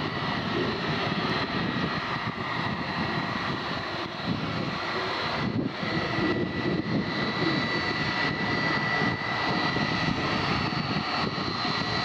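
Jet engines of a Jet2 Boeing 757-200 running at taxi power as the airliner taxis, a steady rush with a constant high whine.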